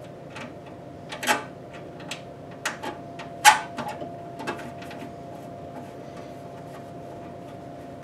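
A handful of sharp clicks and knocks from hands handling a PC case, the loudest about three and a half seconds in, with a faint steady tone underneath.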